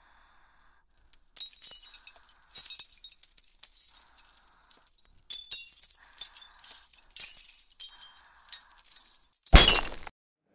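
Glass clinking and tinkling in many quick, high, sharp strikes, then a loud glass shatter near the end.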